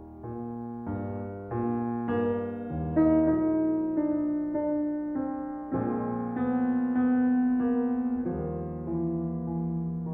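Background music: piano, with notes and chords struck in turn and held.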